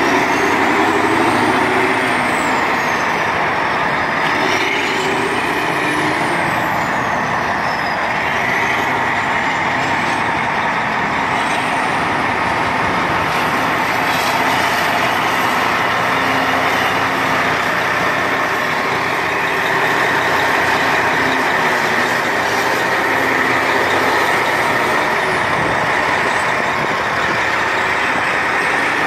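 Heavy diesel engines of a Caterpillar 775E haul truck and a Caterpillar 988F wheel loader running close by as the loader works the rock pile. A steady engine drone carries a high whine that rises and falls every couple of seconds at first, holds high for about ten seconds in the middle, then drops and climbs again near the end.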